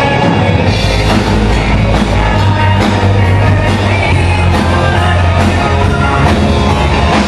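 Live rock band playing loudly, a vocalist singing into a microphone over electric guitars.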